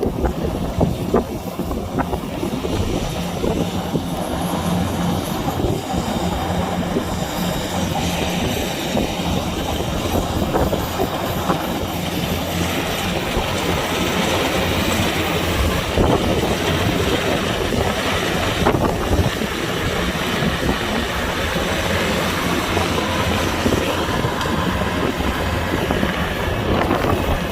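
Kubota DC-105X combine harvester running steadily: a constant low diesel engine drone under a dense, continuous mechanical clatter from the machine.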